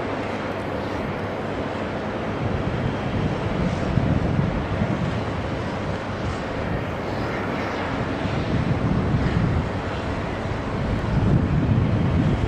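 Jet engines of taxiing airliners running, a steady noise, with wind buffeting the microphone in gusts that swell twice.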